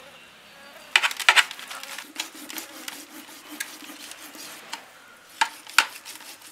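Kitchen knife cutting slashes through the thick scales and skin of a large Asian sea bass: crisp crunching and scraping strokes, bunched about a second in and again near the end. The cutting is hard going; the cook is unsure whether the fish is tough or the knife is blunt.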